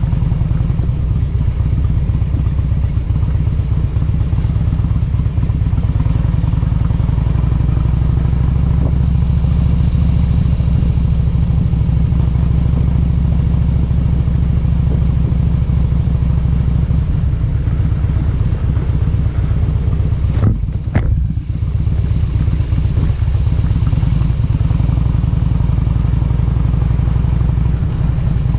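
A vehicle engine running steadily under way, with a short lull in the sound about two-thirds of the way through.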